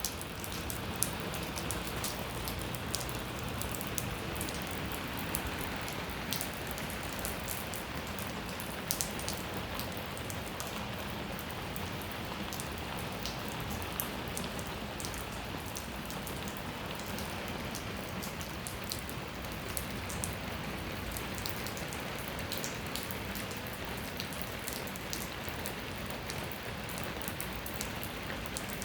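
Light rain falling steadily: an even hiss with many separate drops ticking sharply on a hard surface.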